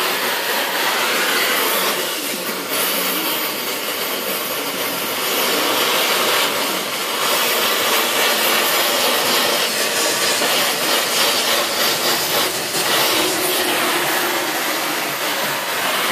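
Gas torch flame burning with a loud, steady hiss as it heats metal in a car's engine bay.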